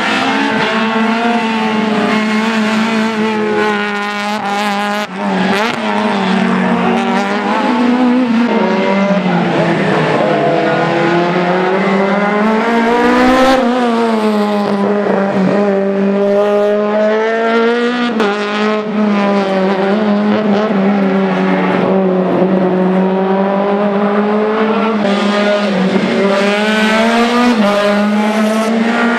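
Racing hatchback engines revving hard on the circuit, the note climbing and dropping again and again as the cars accelerate, shift and lift off for corners.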